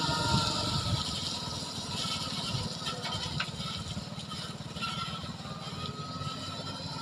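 Engine of a self-loading concrete mixer truck running with a fast low throb as the truck drives off, growing fainter.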